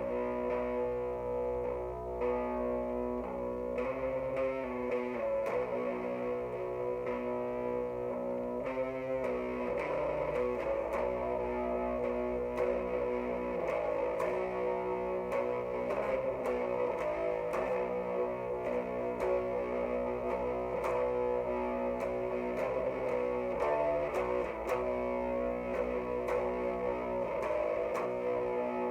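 Distorted electric guitar, a Jackson X Series SCX 3H through an Orange Mini Crush 3-watt amp boosted by a Boss ODB-3, playing a slow doom metal riff of held, ringing chords and notes.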